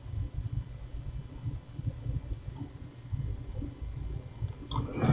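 A low, steady rumble with a few faint clicks, about halfway through and again near the end.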